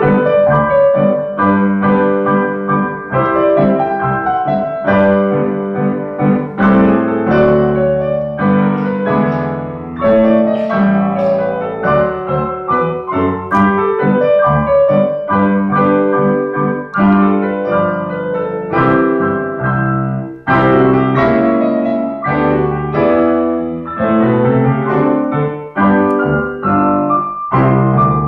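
Steinway concert grand piano played by several players at one keyboard, a lively ragtime piece with a steady bouncing bass under a busy treble melody.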